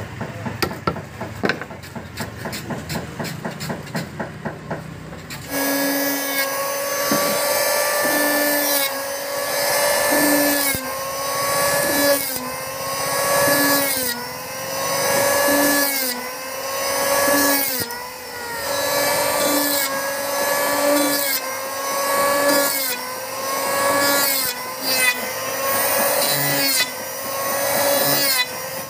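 A hammer tapping a wood chisel in quick, regular strikes for about five seconds. Then an electric hand planer starts and shaves the plank in repeated passes, its motor note dipping under load and recovering about every two seconds.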